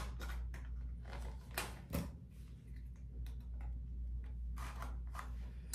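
Faint, scattered clicks and light taps of small skincare items being picked up and handled, about eight in all, over a low steady hum.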